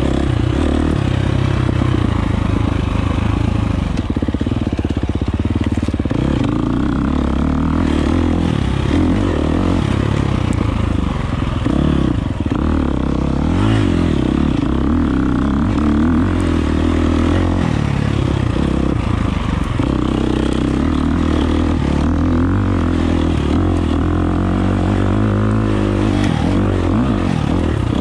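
2023 Husqvarna FX350's 350 cc single-cylinder four-stroke engine running under way on a dirt bike, its revs rising and falling with the throttle.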